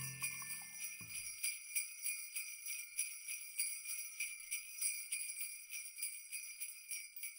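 Jingle bells shaking in a steady rhythm at the end of a piece of background music: the lower instruments stop about a second in, leaving only the bells, which fade out at the end.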